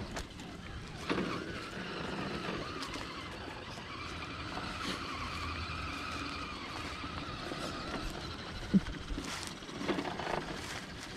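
Element RC Enduro Trail Walker scale RC crawler driving over a dirt trail: its electric motor and drivetrain gears give a steady whine whose pitch wavers slightly with the throttle. One sharp knock stands out a little before the end.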